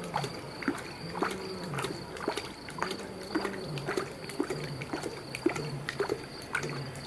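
A lion lapping water with its tongue, in an even rhythm of about two wet laps a second.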